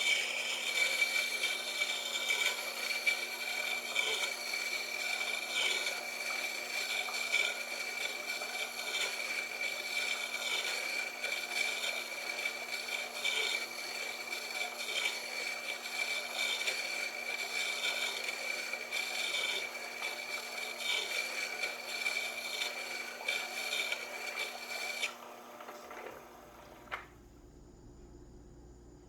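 Tormek T-8 water-cooled sharpener running, with a drill bit being ground against its stone: a steady motor hum under a rasping scrape that swells and fades about once a second. Near the end the grinding stops, and the motor hum cuts off a moment later.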